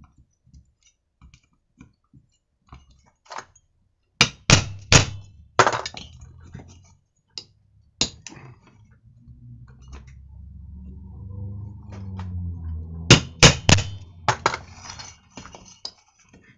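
Sharp metallic taps of a hammer on a T-handle hex key seated in a crankcase screw of a Chinese brushcutter engine, knocking loose screws held with thread locker. The taps come in a few scattered clusters, with a low rumble between them near the middle.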